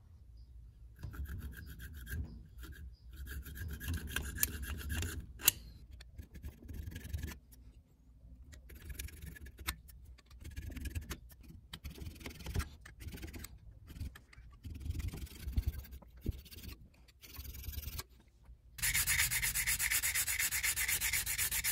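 Metal scraping as a thin pointed hand tool is worked along the damaged cross-hatch knurling of a drill's metal chuck shell, in short irregular strokes with pauses. About nineteen seconds in it gives way to steadier, louder rubbing of 220-grit sandpaper over the knurled chuck.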